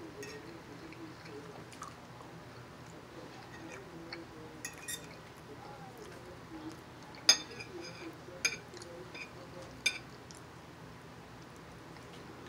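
A metal fork clinks sharply against a ceramic plate three times, about seven, eight and a half and ten seconds in, each with a short ring, between smaller taps and quiet chewing.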